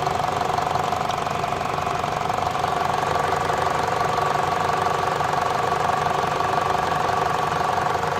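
Citroën C5's 1.6 VTi four-cylinder petrol engine idling steadily with a ticking noise.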